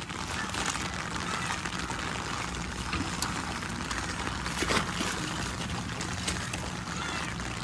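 Heavy rain falling: a steady, even hiss with a few sharper drop hits.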